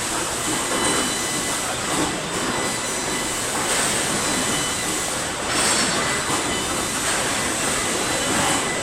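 Steady machinery din of a car assembly plant floor, with a few faint high whining tones, mixed with the rolling of a tour tram carrying the listener.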